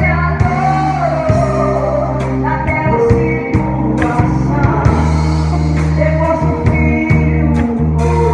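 Worship band playing a song: a singer over guitar, steady low sustained notes and a drum kit keeping the beat.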